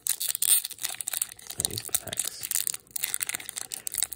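Foil wrapper of a Pokémon booster pack being torn open by hand: irregular crinkling and ripping of the thick, tightly sealed foil, busiest in the first second.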